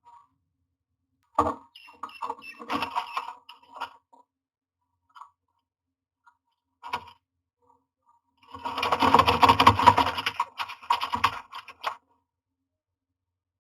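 Scratching, rustling and scattered knocks inside a wooden nest box as a common myna moves about on its nesting material. There is a few seconds of rustling early on and a longer, louder spell of scratching near the end.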